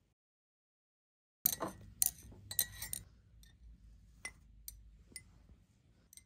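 After a second and a half of silence, ceramic mugs and glass drinking straws clink and tap in a quick cluster with a faint ring, followed by a few scattered lighter taps.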